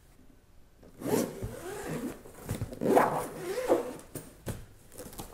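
Zipper on a padded nylon strobe carrying case being pulled open around the case in a few uneven pulls over about three seconds. A couple of light taps follow near the end as the lid is lifted.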